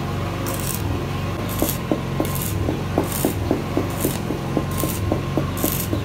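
Stick welding on a square steel tube frame: the welding arc crackles and hisses in short spells. Background music with a steady beat of about four ticks a second plays under it.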